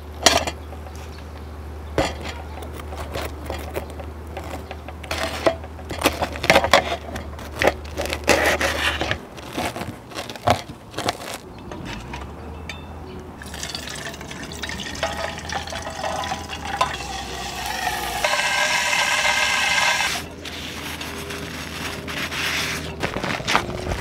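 Short clinks and scrapes of metal utensils for the first several seconds, then greasy washing water sloshing in a steel pan and tipped out for several seconds in the second half, stopping suddenly just after 20 seconds.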